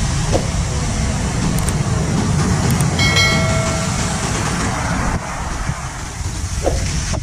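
Honda ADV150 scooter on the move: a steady rumble of engine, tyres and wind on the helmet microphone. A short beep with a pitched ring comes about three seconds in.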